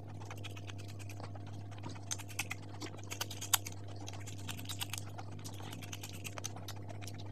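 Close-miked eating sounds: irregular small clicks and crackles of chewing fried samosa pastry, with one sharper click about three and a half seconds in. A low steady hum runs underneath.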